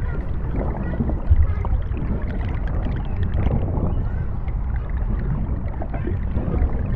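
Underwater ambience: a steady deep rumble with small bubbles gurgling and popping throughout.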